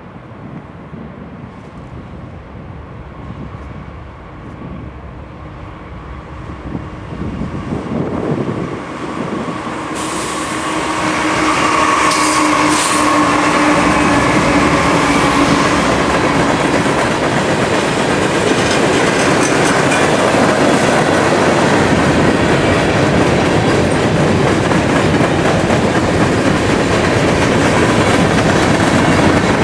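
Two Norfolk Southern GE C40-9W (Dash 9) diesel locomotives hauling a long freight train, growing louder over the first ten seconds as they approach, then passing with a steady engine drone. After them come the freight cars, with a steady loud noise of wheels on the rails.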